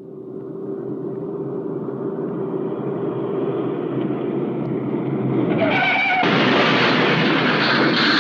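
An old cartoon sound effect: a rumbling noise that fades in and swells steadily louder, with a short warbling tone about six seconds in, after which it turns louder and brighter.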